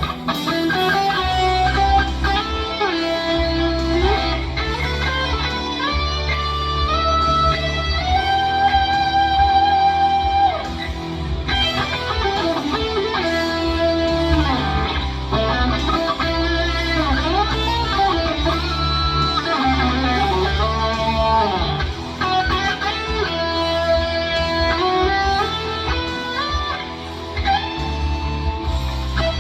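Overdriven electric guitar playing an improvised rock lead in E minor, with string bends and long held notes with vibrato, over a backing of bass and drums. The guitar tone comes from a Fractal Audio FM9 amp modeler.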